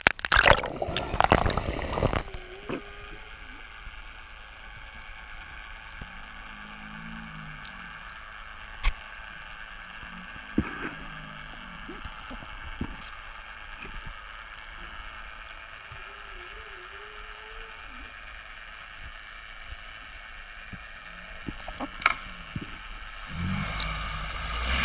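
Underwater ambience picked up by a camera in its housing: a steady water hiss with sharp clicks now and then and a few faint low wavering tones, after about two seconds of loud splashing and water noise as the camera goes under. A low rumble rises near the end.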